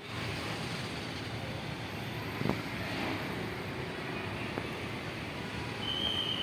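Steady outdoor traffic noise, with two short knocks about two and a half and four and a half seconds in.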